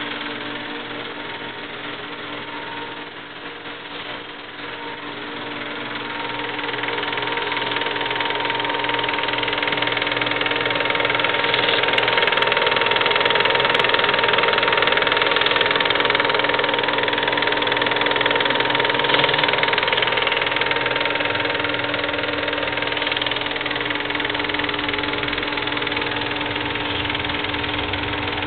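Eumig 8 mm film projector running: a steady mechanical whirr and clatter of its motor and film transport, with a constant hum. It grows louder over the first several seconds, then stays level.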